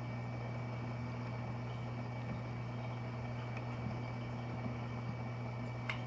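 Steady electrical hum of a saltwater aquarium's pump or filter, with a few faint ticks and one sharp click near the end.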